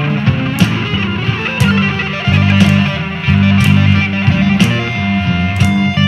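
Blues-rock instrumental section with electric guitar over bass guitar and drums. A sharp drum and cymbal hit lands about once a second.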